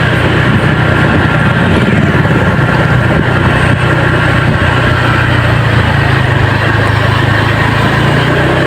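Engine of a road vehicle running at a steady speed, with a continuous rush of road and wind noise.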